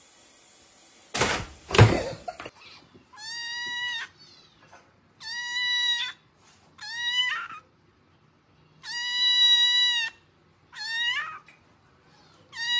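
A short loud noisy burst about a second in, then a kitten meowing six times in separate high-pitched calls a second or two apart.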